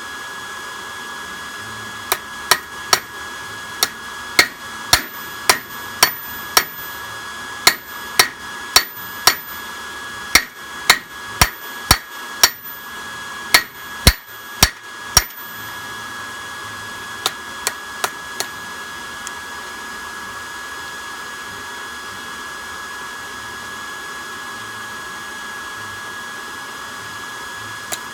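Hammer striking a hot railroad spike on a railroad-track anvil: a run of sharp, ringing metal-on-metal blows, about two a second, that stops about halfway through, followed by a few lighter taps. A steady high-pitched whine runs underneath.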